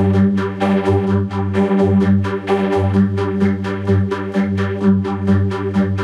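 Emergency alert alarm tone, a Kyrgyzstan EAS alarm, played through an audio effect: a loud, steady synthesized chord with a low hum, re-struck rapidly at about seven pulses a second.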